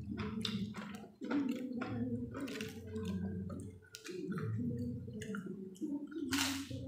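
Close-up sounds of a person eating: chewing with many short wet clicks and smacks. Near the end, a single loud crunch as a raw cabbage leaf is bitten.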